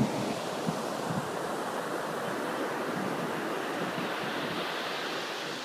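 Ocean surf breaking and washing up a sandy beach: a steady rush of waves, easing a little near the end, with some wind on the microphone.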